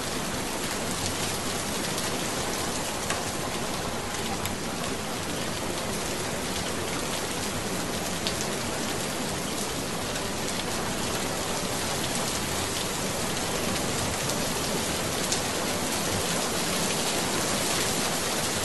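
Steady, even rain-like hiss with scattered faint ticks.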